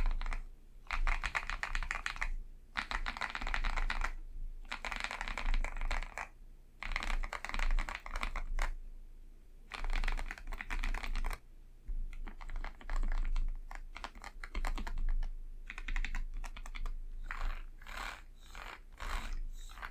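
Typing on an Akko 5075B Plus mechanical keyboard with Akko V3 Cream Blue switches: quick runs of key clicks about one to two seconds long with short pauses between, ending in a few separate keystrokes.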